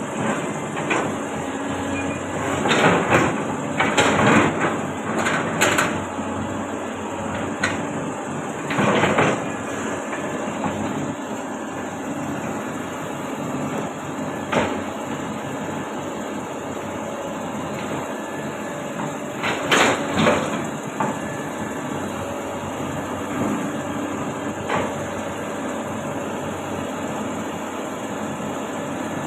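Caterpillar 320D L excavator's diesel engine running steadily, with several bursts of heavy metal clanking and scraping, most a few seconds in and again about two-thirds through.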